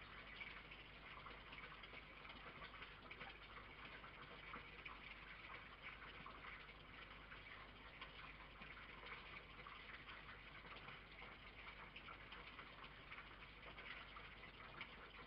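Near silence: a faint, steady hiss with fine crackling and a low hum, without any distinct sound.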